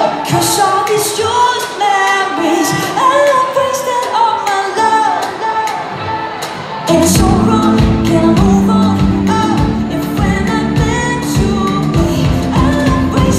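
Live pop-rock band performing with a lead singer: the voice carries over sparse backing at first, then bass guitar and drums come in about halfway through and the full band plays on.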